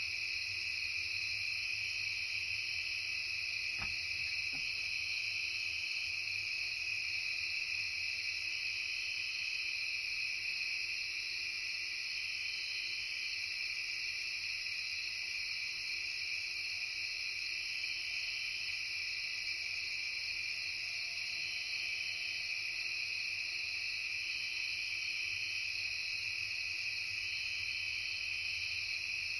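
Late-summer night chorus of crickets and other insects: a continuous, layered high-pitched trilling that holds steady throughout.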